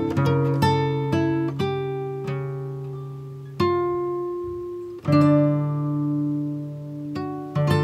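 Background music played on acoustic guitar: single notes and chords plucked and left to ring out.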